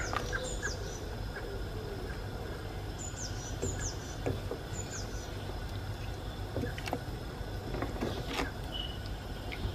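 Wooden spoon stirring a thick chicken and potato curry in a steel pot, with a few light knocks against the pot over a steady low hum. A bird chirps in the background in short, high, falling calls, several times.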